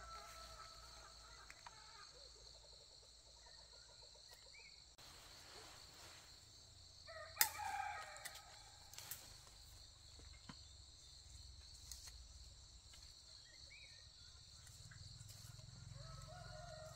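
A rooster crowing, once about seven seconds in, just after a sharp snap, and again near the end, over a steady high-pitched insect drone.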